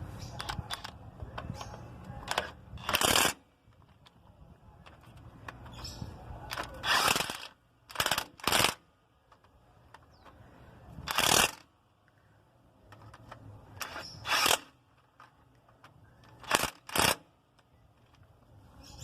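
A power impact wrench running the differential cover bolts of a VW 7-90 truck in, in about eight short bursts of under a second each, some in quick pairs, with pauses between bolts.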